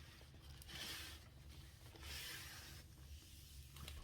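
Soft rustling and rubbing of a diamond painting kit's packaging being handled, in two short stretches: about a second in, and again just after two seconds.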